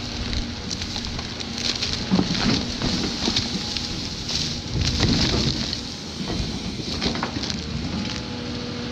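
Caterpillar 349F excavator's diesel engine running under load as the bucket tears a large stump from the ground, with roots and wood cracking and snapping and soil breaking away in a dense run of sharp cracks.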